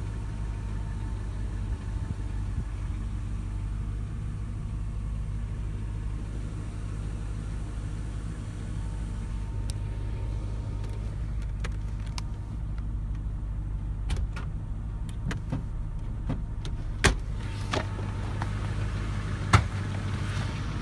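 1994 Ford Thunderbird's 4.6-litre V8 idling steadily. In the second half a scatter of sharp clicks and knocks sounds over it, two of them louder, near the end.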